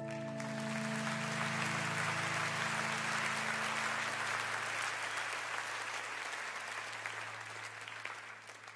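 Crowd applauding, starting about half a second in and fading out over the last few seconds. The song's final held chord dies away beneath it, leaving one low note.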